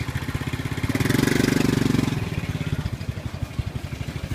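A small engine running with a rapid, steady low putter, typical of a motorbike idling close by, swelling louder for about a second partway through.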